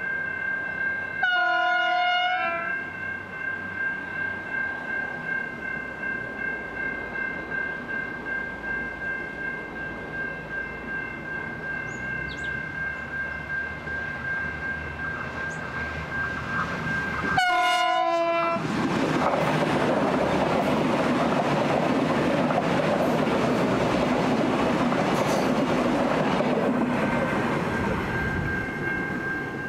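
Two coupled V/Line VLocity diesel railcar units climbing a grade and passing close by. The horn sounds briefly about a second in and again just before the train passes. The engines and wheels then rush past loudly for several seconds and fade near the end.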